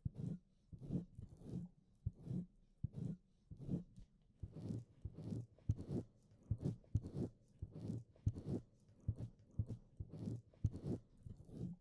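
Wet licking and mouth smacking right against a binaural microphone's ear: a tongue and lips working wetly in a steady run of short smacks and clicks, about two a second.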